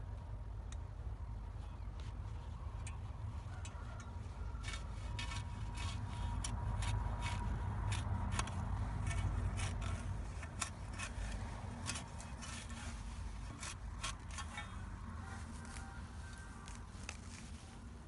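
A knife blade digging and scraping into grassy soil, with a rapid run of sharp clicks and scrapes from about four seconds in that thins out near the end, over a steady low rumble.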